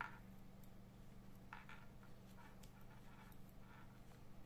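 Near silence: a few faint scratchy rustles of yarn and a sewing needle being drawn through knitted fabric, over a steady low electrical hum.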